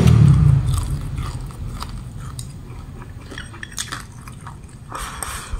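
Close-up chewing of crispy fried pork belly, with irregular short crunches from the crackling skin.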